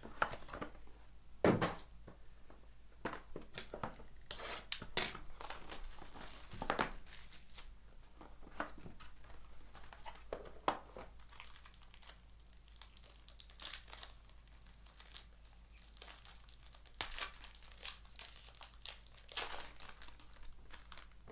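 Plastic wrapping crinkling and tearing in irregular bursts as trading card packs and a box are unwrapped by hand.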